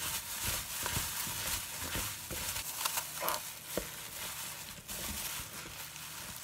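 A hand in a plastic bag mixing cubed daikon radish with wet chili seasoning in a bowl: the bag crinkles and the seasoned radish cubes squish and shift in short, irregular strokes.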